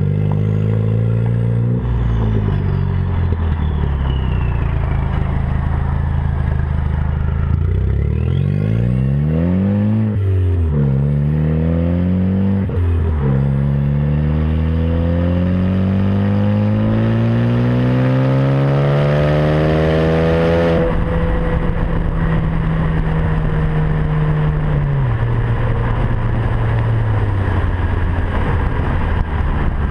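Turbocharged Ford Focus ST engine with a 3-inch catless downpipe, revving and accelerating through the gears. The engine pitch rises and falls with each shift, with a high turbo whistle rising and falling above it. There is one long pull up through a gear that cuts off suddenly about two-thirds in as the throttle is released, then the engine runs at a steady lower pitch that steps down again near the end.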